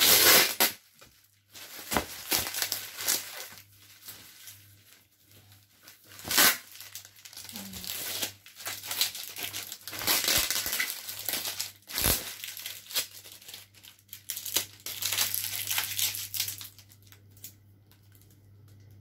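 Plastic parcel wrapping crinkling and rustling as it is cut, peeled and handled, in irregular bursts. There are three louder sharp rips along the way, and it grows quieter near the end.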